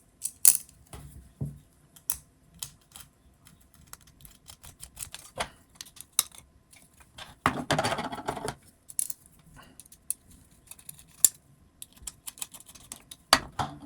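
Scattered small clicks and taps of screws and standoffs being handled and fitted into a robot's chassis plate, with a denser burst of clattering that lasts about a second, around eight seconds in.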